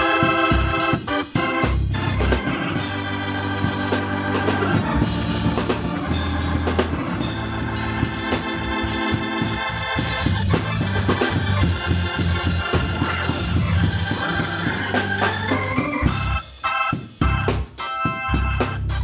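Hammond organ playing a gospel groove with a drum kit. Near the end the band hits a run of short, clipped stabs with brief gaps between them.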